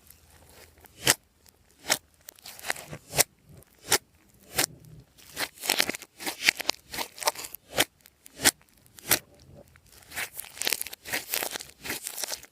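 Glossy slime being worked by hand, giving sharp sticky clicks and pops. They come a few at a time at first and turn quicker and denser after about five seconds and again near the end.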